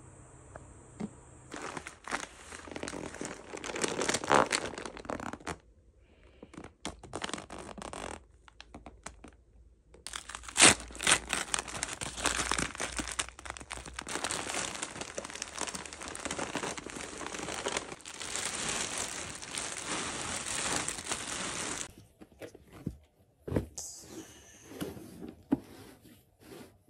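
Plastic and paper packaging crinkling and tearing as a parcel is unwrapped by hand, in long spells of rustling with short pauses between.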